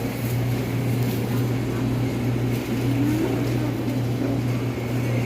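A steady low mechanical hum with a constant noise bed.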